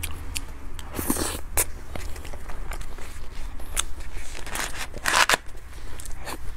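Close-miked eating sounds of soft cream-topped cupcakes eaten with a spoon: many small wet mouth clicks and smacks, with two short crinkling or scraping sounds, about a second in and about five seconds in, from the spoon and the paper cupcake liner.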